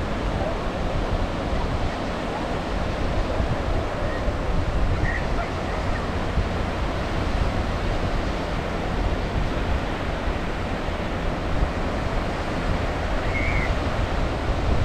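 Ocean surf on a beach: waves breaking and washing in as a continuous rushing with a deep rumble underneath.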